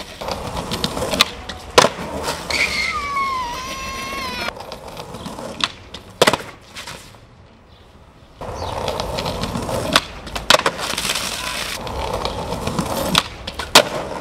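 Skateboard wheels rolling over pavement, broken by several sharp clacks of the board popping and landing. A brief wavering high tone sounds a few seconds in, and the rolling drops away for about a second and a half midway before starting up again.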